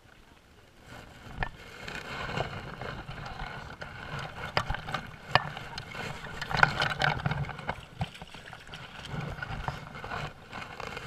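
Water splashing and sloshing, broken by scattered sharp knocks and scrapes, as a hooked trout thrashes at the surface and is brought to a wooden landing net.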